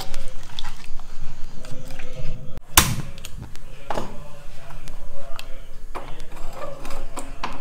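Kitchen handling sounds: a ladle stirring curry in a clay pot, then a sharp click about three seconds in as a gas stove burner is lit. A few knocks follow as the clay pot is set down on the burner's grate.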